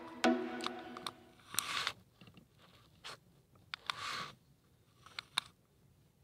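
Background music ends about a second in. Then come faint handling noises: a few sharp clicks and two short swishing hisses about two seconds apart.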